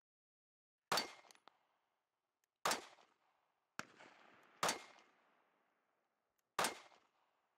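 Compact concealed-carry pistol fired four times in slow, aimed shots about two seconds apart, each sharp crack trailing off in a short echo; a fainter crack comes between the second and third shot.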